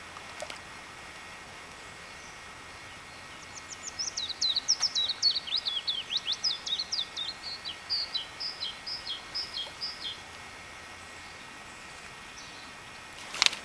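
A small songbird singing one long, fast song of high chirping notes, starting about three seconds in and stopping about ten seconds in, over a steady faint outdoor hiss.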